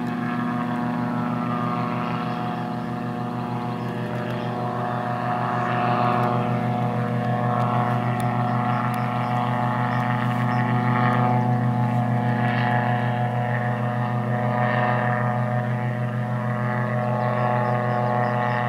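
Light autogyro in flight: its piston engine and propeller drone steadily as an even, pitched hum, swelling a little in loudness a couple of times.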